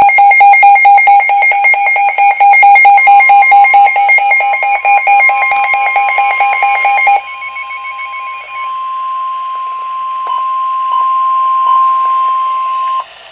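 Emergency weather alert tones for a severe thunderstorm warning. Loud, rapid electronic alarm beeping runs for about seven seconds. Partway through, the National Weather Service's steady single-pitch 1050 Hz warning alarm tone joins it, carries on alone after the beeping stops, and cuts off suddenly near the end.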